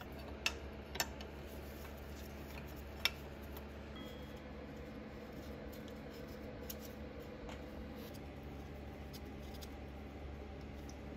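A few sharp, light clicks and taps from a wiring loom and its bracket being handled and fitted against the engine block by gloved hands, over a faint steady low hum.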